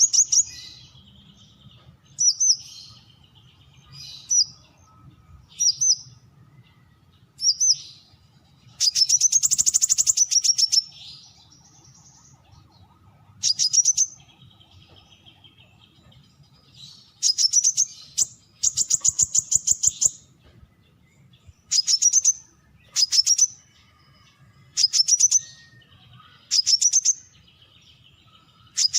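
Brown-throated sunbird calling: short, sharp, high chirps repeated every second or two, with two longer, rapid trilling phrases along the way.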